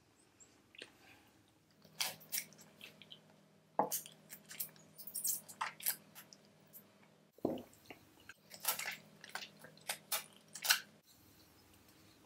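Close-miked wet mouth sounds of eating a small candy: a scattered series of sharp smacks and clicks of lips and tongue as she sucks on it, starting about two seconds in.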